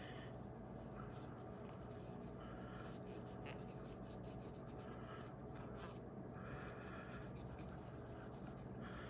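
Faint cloth rag rubbing over a tobacco pipe's wooden bowl with soapy cleaner, in short repeated strokes, over a steady low hum.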